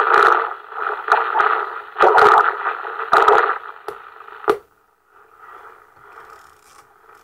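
President Lincoln CB radio's speaker putting out irregular bursts of rushing, crackling noise with sharp cracks and pops while it is being tuned on sideband. This is the intermittent receive fault its owner is trying to diagnose. About four and a half seconds in, the noise cuts off suddenly, leaving only a faint hiss.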